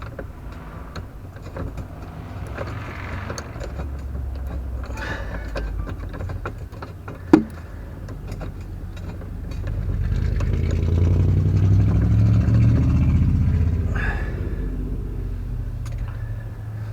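A low vehicle rumble that swells up about ten seconds in and fades away, with a single sharp knock about seven seconds in.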